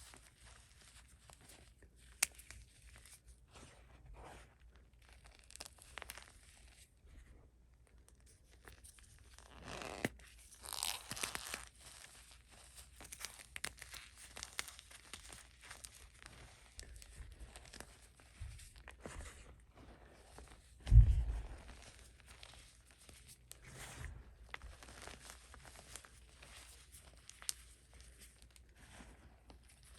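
Gym chalk topped with cornstarch being crushed, giving a run of squeaky, crunchy crackles. There is a denser, louder spell about ten seconds in and a single low thump a little after twenty seconds.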